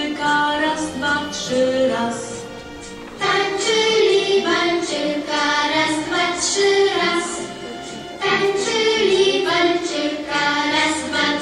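A group of young children singing a song together, in phrases with short breaks about two and eight seconds in.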